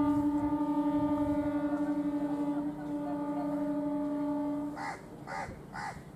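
The horn of an eight-coach MEMU electric train sounding one long steady blast, which stops about three-quarters of the way through. A crow then caws three times.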